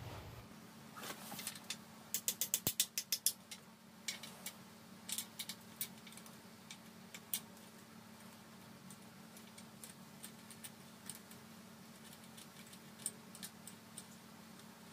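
Ratchet wrench clicking as engine bolts are loosened: a quick run of about ten clicks a couple of seconds in, then scattered single clicks, over a faint steady hum.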